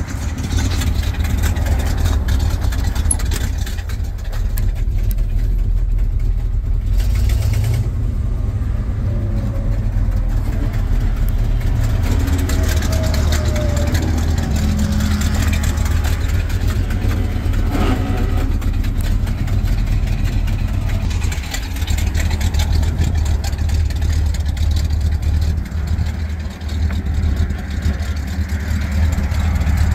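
1975 Chevrolet C65 truck's engine idling steadily, a low rumble.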